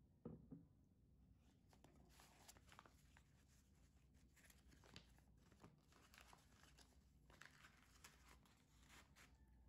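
Faint crinkling and rustling of a sandwich's brown paper wrapping as it is lifted and peeled back by hand, with a soft thump just after the start.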